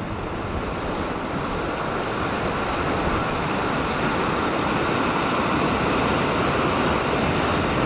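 Sea surf surging and washing over a rock ledge, a steady rush of water that slowly grows louder.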